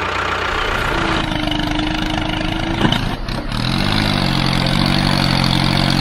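Tractor engine running steadily, its pitch rising and falling about four seconds in as the wheels spin in mud.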